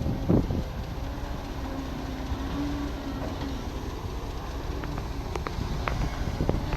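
Excavator's diesel engine running steadily, with a faint whine that comes and goes and metal knocks: a loud one just after the start and several near the end.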